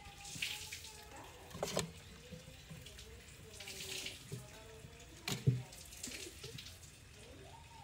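Kittens scuffling on a burlap sack in a wooden crate: rustling and scratching, with a soft thump just under two seconds in and a louder double thump about five and a half seconds in.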